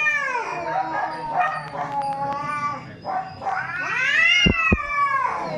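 Cat yowling (caterwauling): a long wail trailing off about half a second in, a run of shorter mews, then a second long wail that rises and falls near the end. Two low thumps sound during the last wail.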